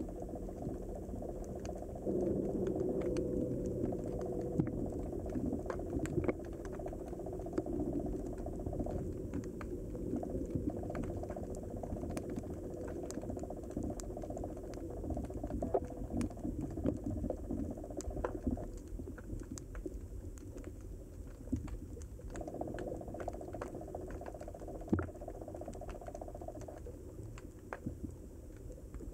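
Underwater ambience in shallow harbour water: a muffled low rush of moving water with frequent small crackling clicks scattered throughout.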